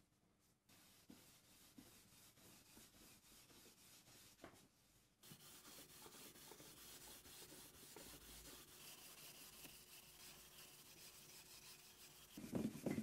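Steel wool rubbing back and forth over the oak top of a wooden tool box: a faint, steady scratchy hiss that gets louder and rougher for a moment near the end.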